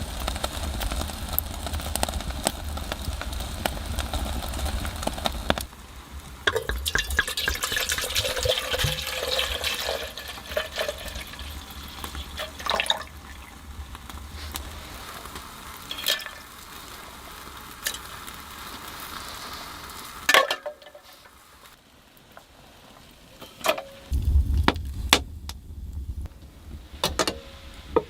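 Cooking sounds: liquid being stirred or poured, with scattered sharp clicks and knocks of utensils and cookware.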